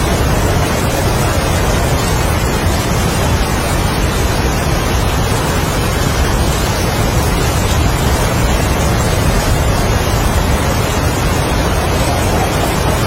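Heavy rain with strong wind: a loud, steady rush of noise, heaviest in the low end, without letup or any separate drops or gusts standing out.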